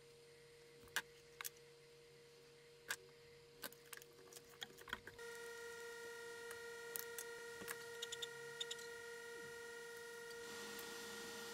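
Scattered light clicks and taps of a small hand tool and wires being handled against a plastic battery-pack case, the sharpest about a second in. A faint steady high hum sets in about five seconds in, with more small ticks over it.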